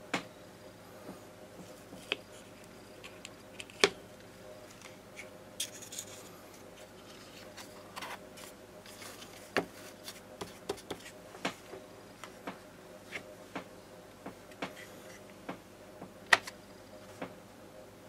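Small wooden box and its lid handled and set down on a hard surface: scattered light knocks and taps, the sharpest about four seconds in and near the end, with soft rubbing and scraping of wood between.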